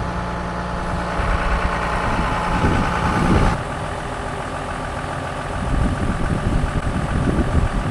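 Engine idling steadily, its sound changing abruptly about three and a half seconds in.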